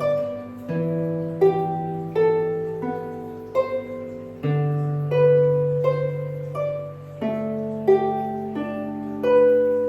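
Monaghan harp played solo: single plucked notes, roughly one or two a second, ring and fade over low bass notes that are left to sound for a few seconds each.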